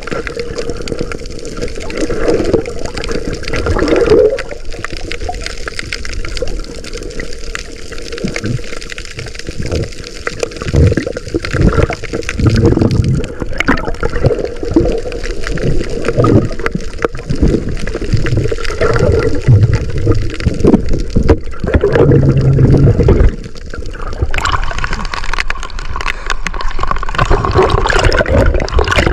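Water sloshing and gurgling, heard muffled through an underwater camera housing as irregular low surges. Brighter splashing comes in over the last few seconds as the camera breaks the surface.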